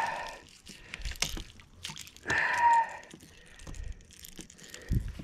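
Wet pond weeds rustling and dripping as they are handled and pulled off the fishing line at the kayak's side, with scattered small clicks and splashes. A short whistle-like tone sounds about two seconds in.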